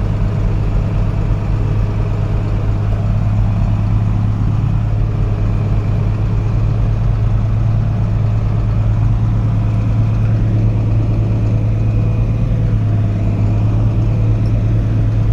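Combine harvester running steadily while cutting wheat: a constant, even machine hum with no change in speed.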